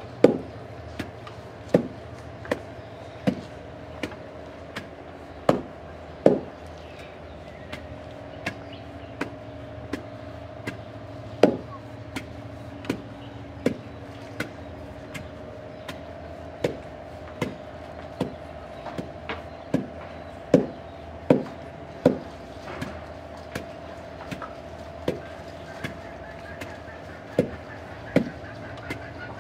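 A wooden pestle pounding boiled cassava and plantain into fufu in a mortar: steady thuds about every three-quarters of a second, some much louder than others.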